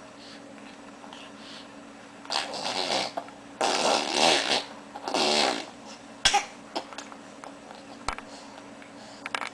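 Six-month-old baby making breathy vocal noises: three bursts, each about half a second to a second long, between about two and six seconds in, then a couple of small clicks.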